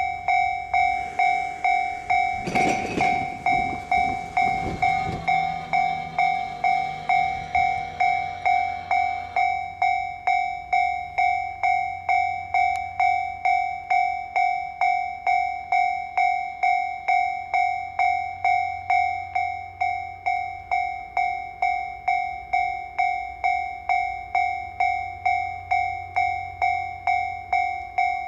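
Japanese level-crossing warning bell ringing: an electronic two-tone clang repeating about twice a second, starting abruptly, the sign that the crossing is closing for an approaching train. A louder rushing noise passes between about two and five seconds in.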